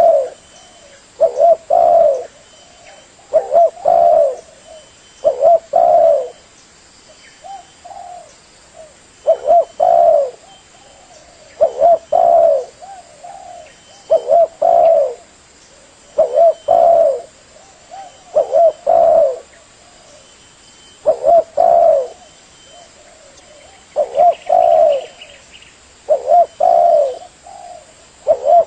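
Spotted dove cooing: repeated low phrases of two or three coos, roughly one phrase every two seconds, with a few longer pauses.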